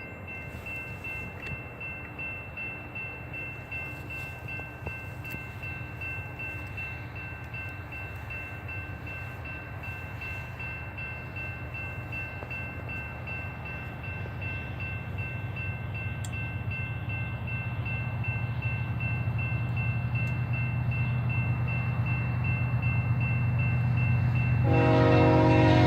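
Freight train approaching, its low rumble growing steadily louder through the second half. Near the end the locomotive's horn sounds a multi-note chord.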